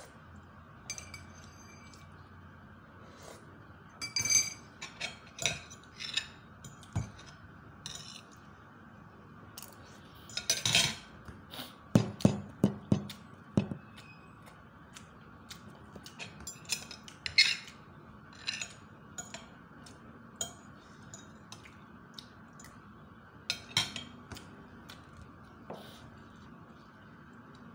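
Metal spoon and fork clinking and scraping against a ceramic plate while eating: irregular sharp clinks, some ringing briefly, with a denser run of louder clicks about eleven to fourteen seconds in.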